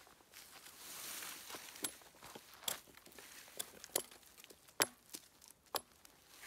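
Rustling and footsteps on the forest floor, with a handful of sharp knocks about a second apart.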